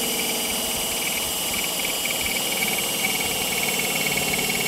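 Makita 18V cordless drill running steadily with a high whine, its bit drilling a screw hole through the metal base plate of a satellite dish mount, to be tapped for a 10-24 screw.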